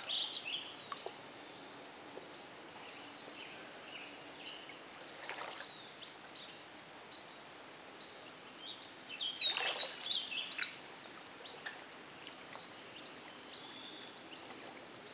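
Water splashing and lapping as a person swims in a hot spring pool, loudest about nine to ten seconds in. Small birds chirp throughout.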